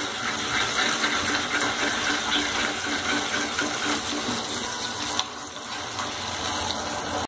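Water with sugar and salt boiling in a pan of tempering, with chillies and curry leaves in it, making a steady bubbling while the sugar dissolves.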